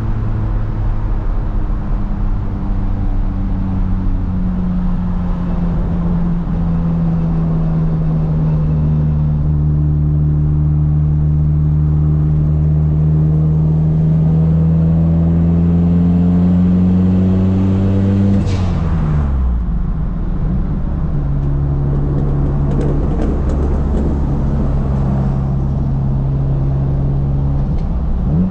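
Nissan Silvia PS13 engine heard from inside the cabin, pulling through a gear with the revs climbing slowly. About 18 seconds in the revs drop sharply at a gear change with a short hiss, then the engine runs on steadily at lower revs.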